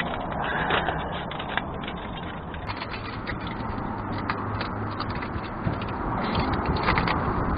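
Aluminium metal repair tape crinkling and rustling as it is pressed and wrapped around a car's exhaust pipe, with many small irregular crackles.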